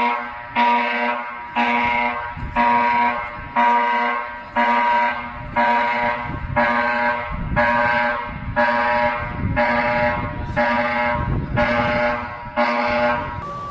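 Electronic emergency-alert alarm: a buzzy, horn-like tone blasting about once a second, each blast just under a second long, stopping near the end.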